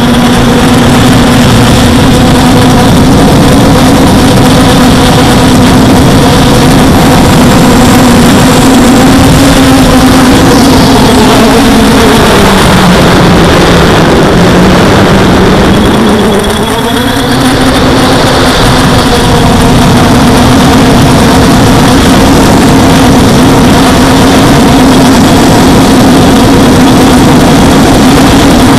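Quadcopter's electric motors and propellers whining loudly and steadily, over a rush of air, as it flies at high speed, over 100 km/h. About halfway through the pitch sinks for a few seconds as the throttle eases, then rises again.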